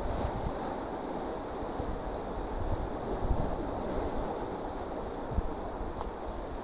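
Surf washing over shoreline rocks, a steady hiss, with wind buffeting the microphone in an uneven low rumble. A brief thump about five seconds in.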